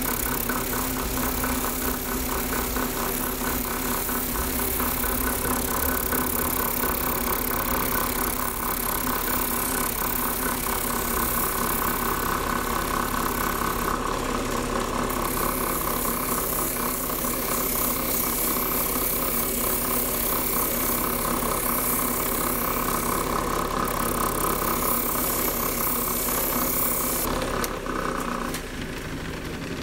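Drill press motor running steadily, spinning a wet sanding drum with a stone held against it as it is shaped into a cabochon. The sound thins and drops in level near the end.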